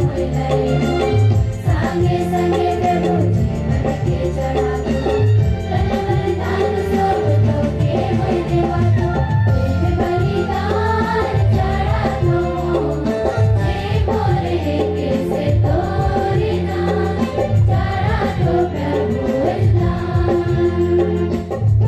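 Choir of young women singing a devotional hymn through a PA, with a live band of keyboard, octopad, dholak and guitars keeping a steady pulsing beat underneath.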